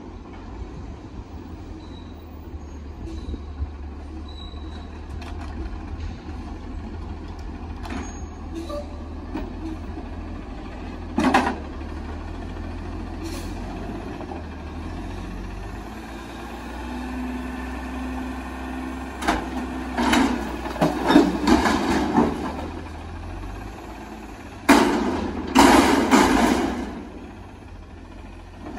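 Front-loader garbage truck (Autocar ACX with Heil Freedom body) running while its front forks pick up and raise a steel commercial dumpster. The engine holds a steady whine as the lift works, and there is loud metal clanking and banging from the dumpster and its lids about twenty seconds in and again near the end.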